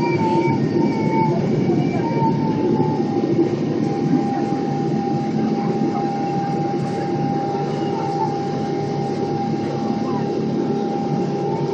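Boeing 777-300 jet engines at climb power just after liftoff, heard from inside the cabin: a steady roar with a steady whining tone running through it.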